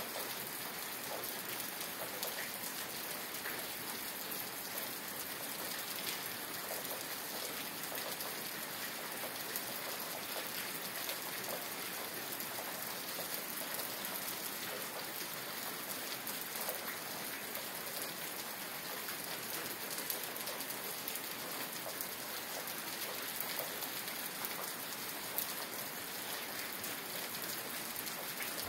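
Steady rain falling, an even hiss of rain with many small drop ticks through it, unchanging throughout.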